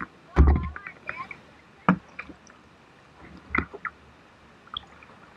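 Kayak paddle strokes splashing into a shallow, fast-moving river, with water gurgling around the hull. Three main splashes come about a second and a half apart, the first with a low thump.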